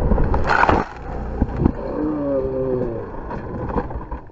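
Dirt bike crash heard from a helmet camera: loud rushing wind and engine noise that ends with a hit a little under a second in, then a drawn-out groaning tone that falls in pitch.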